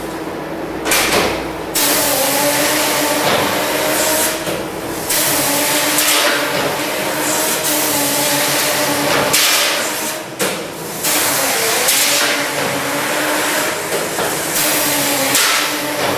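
Jeros industrial tray and utensil cleaning machine running: a loud hiss over a steady mechanical hum, with a few brief breaks and knocks.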